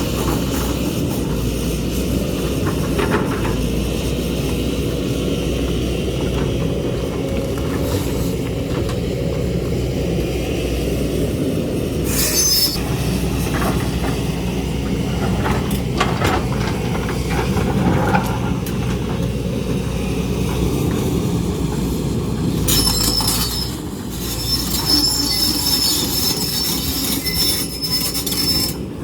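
Hydraulic excavator running steadily under load, with a low engine drone and several short high metallic squeals and scrapes, most of them in the second half.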